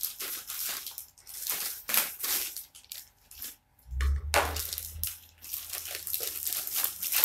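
Plastic packaging crinkling and rustling irregularly as a parcel is pulled and torn open by hand, with a low bump about four seconds in.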